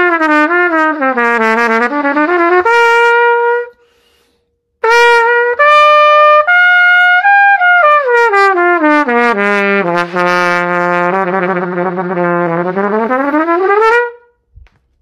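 A King cornet played in two phrases, with notes that slide up and down in pitch and a short pause about four seconds in; the second phrase slides down to long low notes, then glides back up before it stops.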